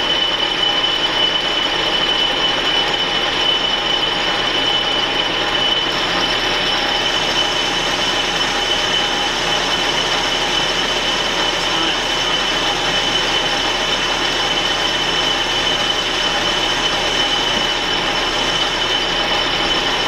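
Metal lathe running while a shop-made boring bar cuts inside the bore of a turned metal hub: a steady machining noise with a constant high whine.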